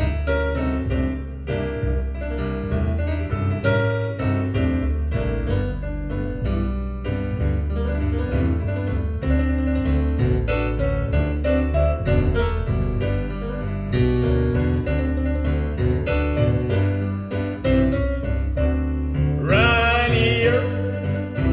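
Recorded music played through a pair of Epicure EPI 500 loudspeakers: a piano with a strong, rhythmic bass line. Near the end a singing voice comes in on a rising, wavering note.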